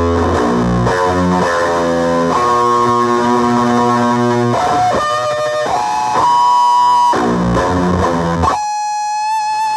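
Electric guitar played through an engaged JHS Bonsai overdrive pedal, a Tube Screamer-style overdrive, into an amp. It starts with a run of lower notes, moves to higher single notes, and ends on one long held high note with vibrato.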